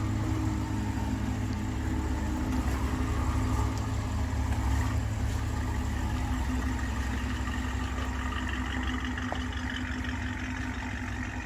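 BMW N63TU twin-turbo V8 running steadily as a low, even hum, with a faint higher whine coming in about two-thirds of the way through.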